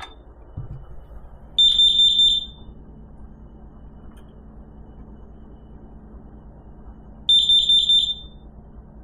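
Carbon monoxide alarm sounding on test: two groups of four rapid, high-pitched beeps about five seconds apart, the four-beep pattern that signals carbon monoxide. A dull knock comes shortly before the first group.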